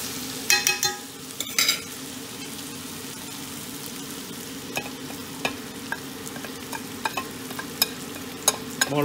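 Sliced onions frying and sizzling in oil in a stainless steel pot, with scattered light crackles. A metal spoon clinks with a short ring twice in the first two seconds as spice powder is spooned in, over a steady low hum.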